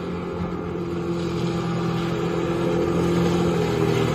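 Small speedboat's engine running at speed, a steady drone that grows louder as the boat comes closer.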